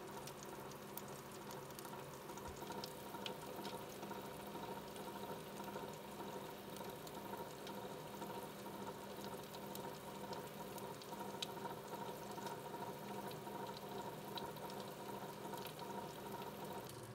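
Meat juices and fat sizzling with scattered small pops on a roasting beef tri-tip, over the steady hum of the Breville Smart Oven Air's convection fan.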